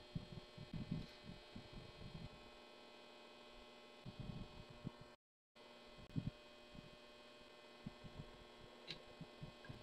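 Faint handling noises: irregular soft bumps and taps as a white plastic cover is fitted over the belt and pulleys of a homemade mini drill press, with one small click near the end. A steady faint hum lies underneath, and the sound drops out briefly about halfway through.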